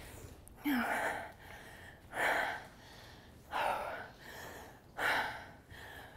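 A woman breathing hard, loud gasping breaths about once every second and a half: she is out of breath from a set of burpees.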